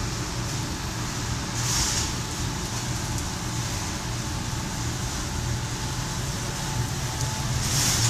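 Probat GG150 coffee roaster running mid-roast: a steady machine drone with a low hum. Two brief hissing swells come about two seconds in and again near the end.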